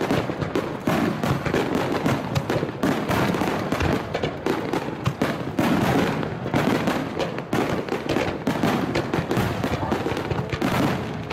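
Fireworks display: a dense barrage of bursts and crackles going off many times a second without a break.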